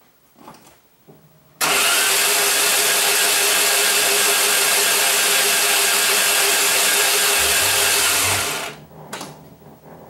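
Starter motor cranking the 1994 Saab 9000's 2.3-litre four-cylinder engine without it starting, a steady loud whirring for about seven seconds that begins suddenly and stops near the end. This is a no-start fault, with the crank position sensor being checked during cranking.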